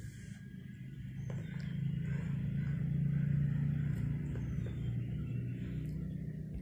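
A low engine rumble that grows louder to a peak about three seconds in and then eases off, with a faint hiss above it.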